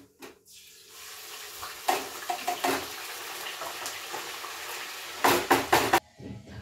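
Food tipped from a container into a steel kadhai, sizzling steadily, with a few clicks, then several loud clattering knocks of metal near the end that stop abruptly.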